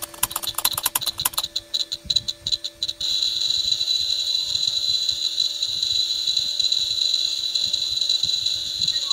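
Piezo buzzer on a homemade mobile-phone call detector circuit. It gives rapid ticks for the first few seconds, then about three seconds in settles into a steady high-pitched beep, the circuit's alert that it is picking up the phone's signal during an outgoing call.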